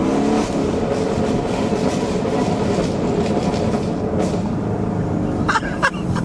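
Camaro 1LE's V8 with long-tube headers, its engine and exhaust drone heard from inside the cabin. It holds fairly steady revs just after a hard pull. A few short sharp sounds come near the end.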